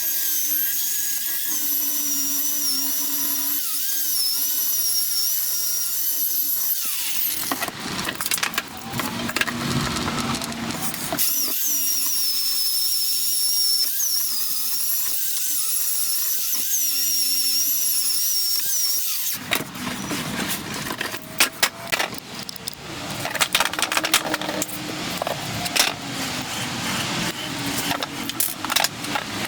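Power drill running in two long runs of about seven seconds each, its high whine wavering in pitch. Between and after the runs come irregular clicks and clatter of tools and parts being handled.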